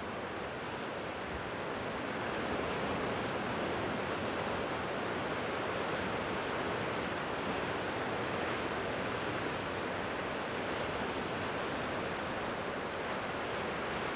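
Steady rushing wash of ocean surf, even and unbroken.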